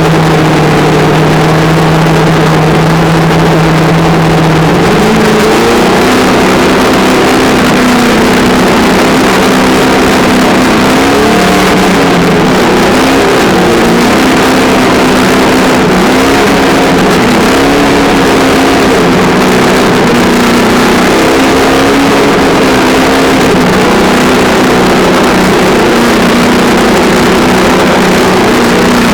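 Traxxas On-Board Audio speaker in an electric Traxxas Slash RC truck playing a loud simulated engine sound. It holds a steady low idle for about five seconds, then steps up in pitch and rises and falls again and again with the throttle.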